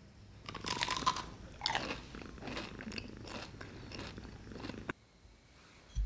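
Fried churros being bitten and chewed, crisp and crunchy: a bite about half a second in, another at about a second and a half, then crunchy chewing that cuts off just before five seconds. A brief low thump near the end.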